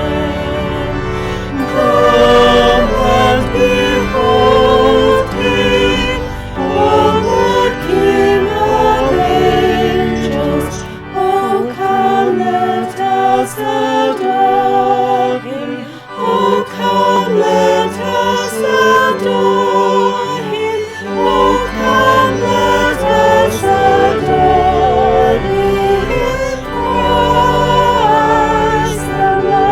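Live music with singing: sustained voices with vibrato over instrumental accompaniment. The bass drops out for a few seconds around the middle, then returns.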